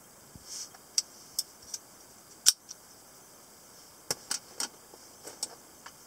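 Sharp metallic clicks and light taps from handling Italian stiletto automatic knives. A few clicks come about a second apart, with the loudest about two and a half seconds in, then a quick run of three clicks around four seconds in and a couple more near the end.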